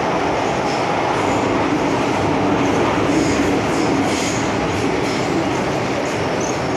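MTR Kwun Tong Line M-Train running between stations: a steady, loud rumble of wheels on track, with a low motor whine that swells in the middle and faint high wheel squeals now and then.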